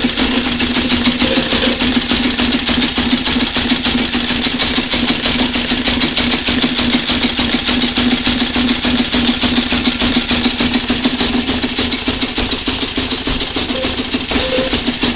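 Small gasoline generator engine running steadily on diesel fuel, fired by a plasma spark ignition from a charged capacitor.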